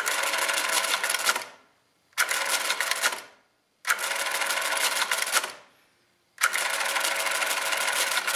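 Brunsviga 11E electrically driven stepped-drum calculator running its division cycles: four separate runs of fast motor-driven clattering, each about a second or a second and a half long, with short quiet gaps between them. Each run is one press of the minus button: the machine subtracts over and over until it underflows, undoes the underflow and shifts the carriage to give the next digit of the quotient.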